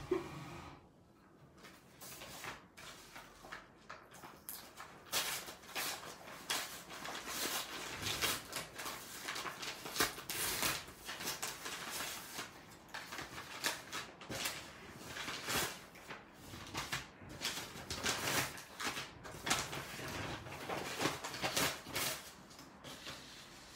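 Paper rustling and crinkling as a paper mail envelope is opened and kraft-paper coffee bean bags are pulled out and laid on a wooden table, in a long run of irregular crackles and scrapes. A wooden chair knocks once at the very start.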